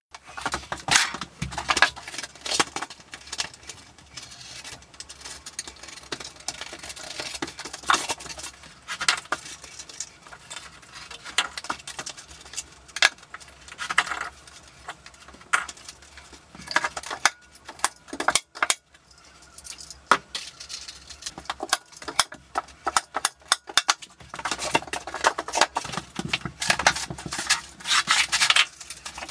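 Roofing felt (tar paper) rustling and crinkling as it is handled, smoothed and pressed into place over a plywood shower floor, with many short, sharp clicks and clacks throughout. The crackling is densest near the end.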